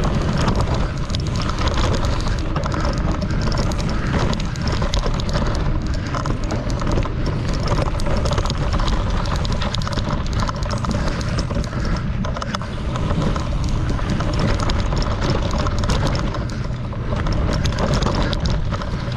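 Mountain bike riding fast down dry dirt singletrack: a steady rumble of tyres over the dirt with constant small rattles and knocks from the bike, and wind buffeting the camera microphone.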